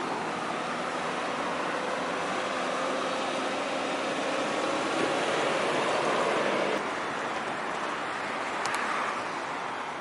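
Highway traffic going past: a steady rush of tyre and engine noise that swells as vehicles pass, drops suddenly just before seven seconds in, and swells again briefly near the end.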